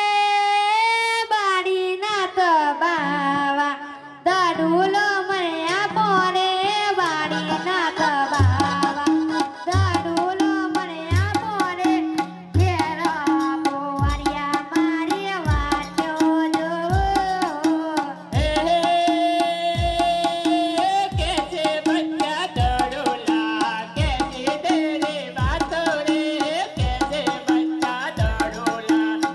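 Music: a melodic lead line over drums. The drums come in several seconds in and settle into a steady, slow beat.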